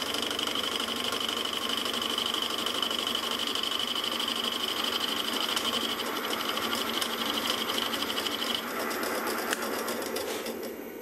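Milling machine spindle running with a boring head plunging into a metal block, the cutter chattering steadily with a high whine that stops about eight and a half seconds in.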